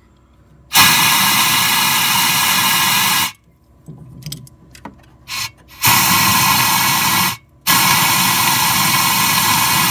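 Compressed-air blow gun hissing in loud blasts down a freshly drilled spark plug hole, blowing out the metal shavings left by drilling for a thread-repair insert. Three long blasts, with a short puff just before the second.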